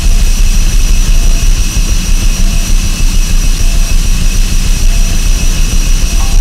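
Harsh noise music played live on effects pedals and electronics: a loud, dense rumbling wall of noise with a steady high whine over it. Faint short beeps recur about every second.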